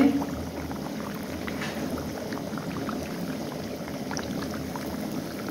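Hot oil sizzling and bubbling steadily around maandazi deep-frying in a pan, with scattered small crackles.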